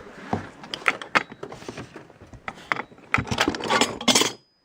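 Loose metal garage-door hardware clinking and clattering as it is handled, with irregular sharp clicks and knocks that cut off abruptly near the end.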